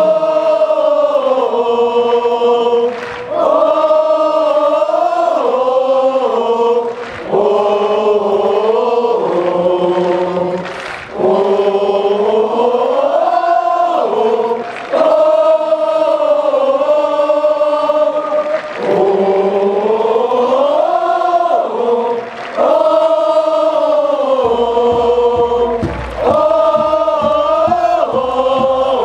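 A large crowd of football supporters singing a slow chant in unison, long sung lines with short pauses for breath every few seconds. Near the end a steady low drumbeat joins in.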